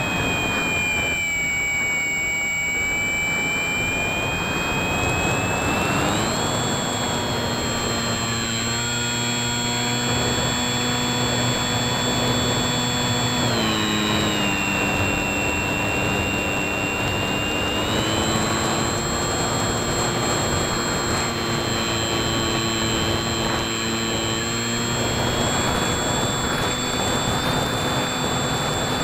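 Bixler 2 RC plane's electric motor and propeller whining in flight over wind rush. The pitch drops and rises in steps with the throttle: it falls at first, climbs about six seconds in, drops again about halfway, then climbs once more. A steady high-pitched tone runs underneath.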